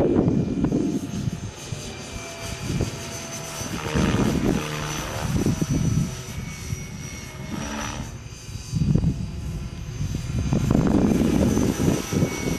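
Electric Gaui Hurricane 425 RC helicopter, set up at 465 size, flying overhead. It makes a steady high whine from the motor and gears along with the whoosh of the rotor, over uneven low rumbling that swells and fades.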